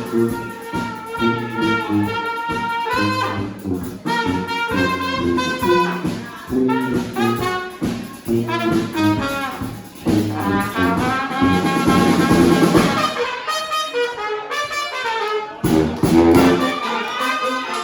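Live brass band playing: horn lines of short punchy notes over a pulsing low bass line, building to a loud held chord about twelve seconds in. The band then thins out for a couple of seconds before coming back in all together near the end.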